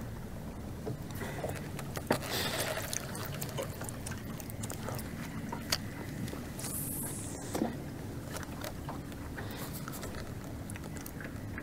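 Small waves lapping against a fishing boat's hull over a steady low rumble, with a few sharp clicks.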